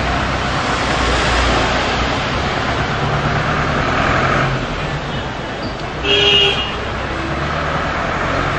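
Minibus engine running as it pulls away, over steady street traffic noise, with one short vehicle horn toot about six seconds in, the loudest sound here.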